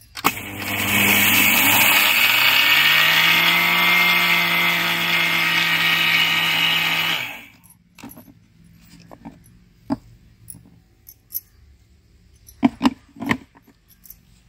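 Electric mixer grinder grinding sugar into powder in its steel jar: the motor winds up to speed, runs steadily, and cuts off about seven seconds in. A few light knocks and taps follow.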